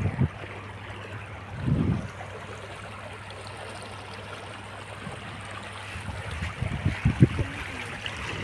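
Floodwater of the swollen Sone river rushing steadily, with low wind buffets on the microphone about two seconds in and again near the end.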